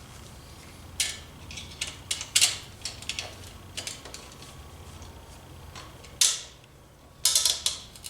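Metal hand tools working on a Motobecane moped's engine, fastening hardware into the cylinder's threads: scattered clinks, clicks and short scrapes of wrench on metal, with a quick cluster of clicks near the end, over a faint steady low hum.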